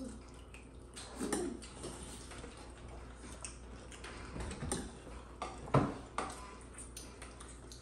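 Dishes and cutlery clinking and knocking now and then, with the sharpest knock about six seconds in.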